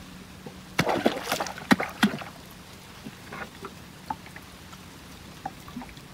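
A quick series of sharp splashes and knocks about a second in, lasting about a second and a half. A small baitfish on a long bamboo pole is dragged and slapped across the river surface to lure a snakehead. After that come softer water sounds and a few small knocks, over a faint steady hum.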